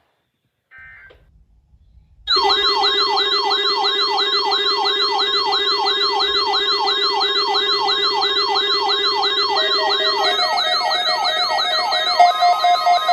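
The last of the Emergency Alert System's end-of-message data bursts, a short buzzy chirp, then about two seconds in a loud electronic siren-like alarm starts. It is a tone sweeping in pitch about two and a half times a second over steady tones, and it changes to a different pattern about ten seconds in.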